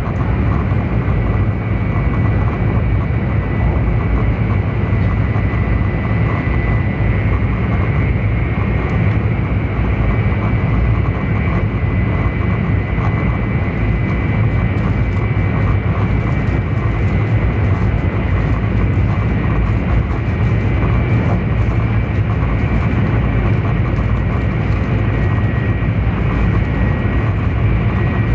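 Taiwan High Speed Rail 700T train running at speed between stations, heard inside the passenger cabin: a loud, steady low rumble of running noise with a thin, steady high whine over it.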